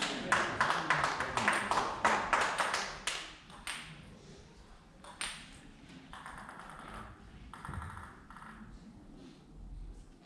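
Table tennis rally: the ball clicks in quick succession against the rackets and the table for the first few seconds, then a few scattered taps follow.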